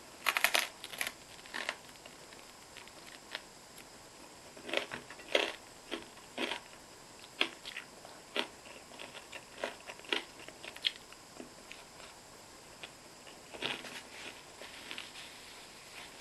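Close-miked eating sounds: bites and chewing of crunchy food, heard as irregular clusters of short crackles. The densest burst comes right at the start, with another near the end.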